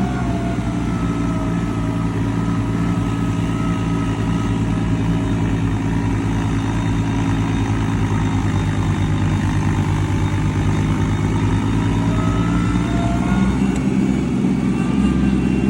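Engine running steadily, its pitch wavering slightly and rising a little near the end.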